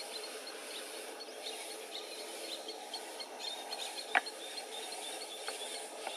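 Outdoor swamp ambience: a steady hiss with many short, high chirps scattered throughout, and one sharp click about four seconds in.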